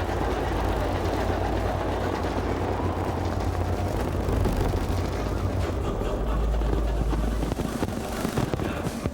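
A steady, deep rumble of a dense fireworks barrage. The heaviest bass falls away about seven and a half seconds in.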